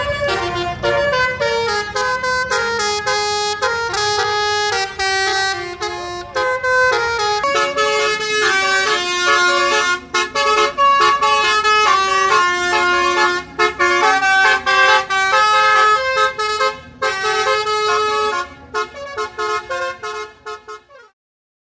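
Multi-trumpet musical air horn of the Indonesian 'telolet' kind, playing a melody of quickly changing notes with several pitches sounding together. Near the end it breaks into short blasts, then stops suddenly.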